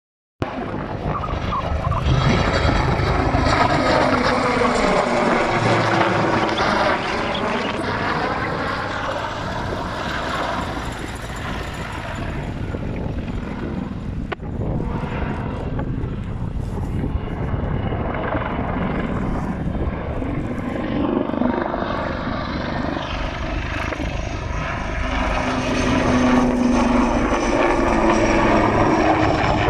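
Westland Sea Lynx helicopter flying and manoeuvring overhead: steady rotor noise and the whine of its twin turboshaft engines. The pitch of the whine sweeps down and back up as it moves about, once in the first few seconds and again near the end.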